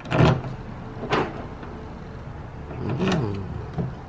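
Key working a newly fitted door lock cylinder on a Toyota Tacoma: three sharp clicks and clunks from the lock and latch mechanism, the loudest right at the start, with smaller ticks between.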